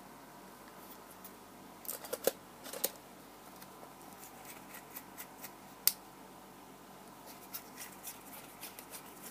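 Canon BG-E14 battery grip and EOS 70D camera body being handled and fitted together: scattered small plastic clicks and rubs, with a cluster of clicks about two seconds in and one sharp click near six seconds.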